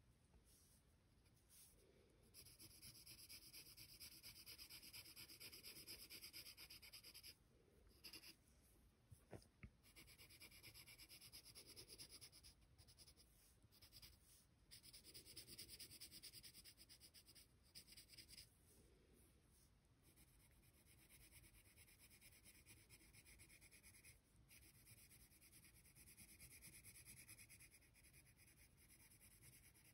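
Faint graphite pencil shading on paper: quick back-and-forth scratchy strokes in runs of several seconds, broken by short pauses as the pencil lifts.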